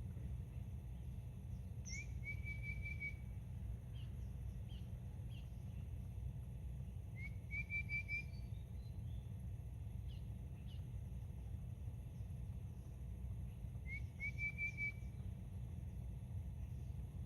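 A bird sings the same short whistled phrase three times, about six seconds apart: a quick rising note, then a brief run of repeated notes. A steady low rumble runs underneath.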